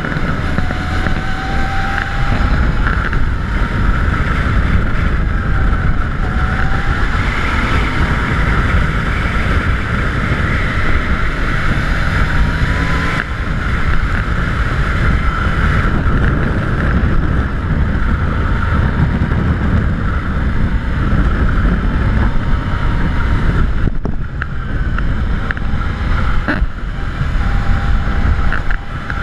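Wind rushing over a GoPro's microphone while the bike it is mounted on is ridden, a steady loud rumble, with a faint tone from the moving bike that rises and falls in pitch.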